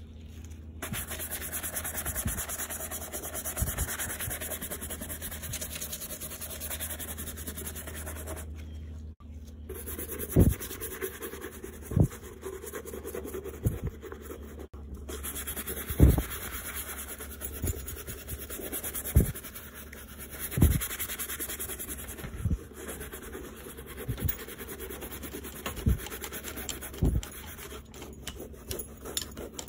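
Horsehair brush buffing the smooth leather of a vintage Coach handbag: a steady bristly scrubbing. In the second half the strokes land with a sharp knock about every second or so.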